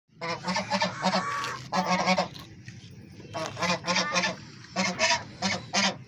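Penned poultry calling in quick runs of short calls, several a second, with brief pauses between runs.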